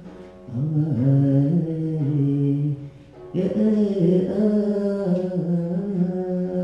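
A voice singing a slow, chant-like devotional melody in two long phrases. The pitch glides and holds on long notes, and the second phrase begins about three seconds in.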